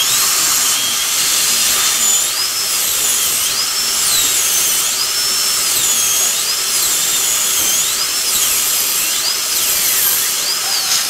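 High-speed dental drill whining as it cuts through a dental bridge to section it. Its pitch repeatedly dips and climbs back as the bur bears on and eases off, over a steady hiss.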